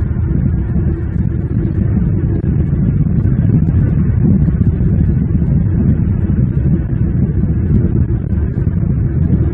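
Steady low rumble of outdoor background noise on the nest-cam microphone, even throughout with no distinct calls or knocks.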